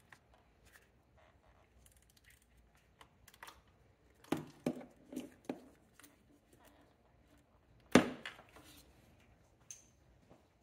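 Hands working on engine-bay hoses and plastic parts: light rubbing and scattered clicks, a quick run of knocks about four and a half seconds in, and one sharp click about eight seconds in, the loudest sound.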